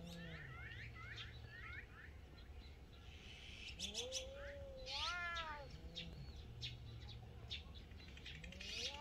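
Feral cats squaring off to fight: low drawn-out growls alternating with a long rising and falling yowl about four seconds in, and another yowl starting near the end. A small bird chirps repeatedly in the first couple of seconds.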